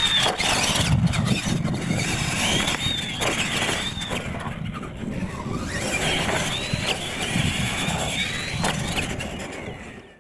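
Radio-controlled monster truck racing on dirt: the electric motors whine, their pitch rising and falling again and again with the throttle, over a low rumble from the tyres and track. The sound fades out near the end.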